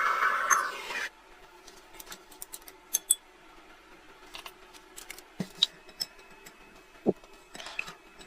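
A power tool running with a high squealing whine stops abruptly about a second in, followed by scattered small metallic clicks and taps of parts being handled.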